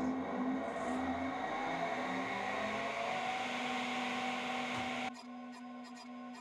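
Table saw running with its blade spinning free, a steady whir, cutting off suddenly about five seconds in. After that, background music with a steady ticking beat.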